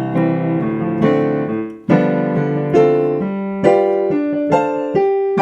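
Piano or keyboard playing the song's instrumental accompaniment, with held chords for about two seconds, then separate notes struck roughly once a second and fading.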